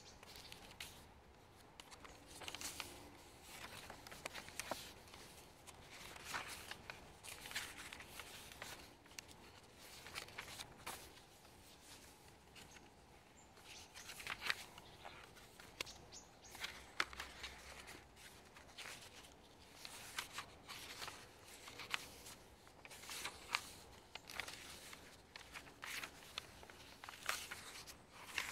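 Pages of a handmade junk journal made of old paper and card being turned by hand, giving irregular papery rustles and flicks.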